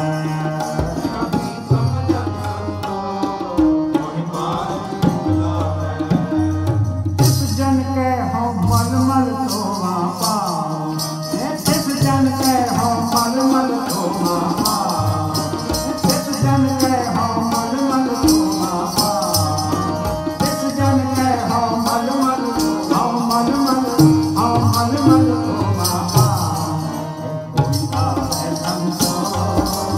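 Sikh kirtan music: Bawa harmoniums playing the melody over tabla accompaniment. A bright, rattling high layer joins about seven seconds in and drops out shortly before the end.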